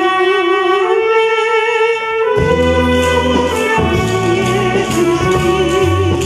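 Music: a soprano holding long notes with wide vibrato over a wind orchestra. The orchestra comes in fully, with brass and a bass line, about two and a half seconds in.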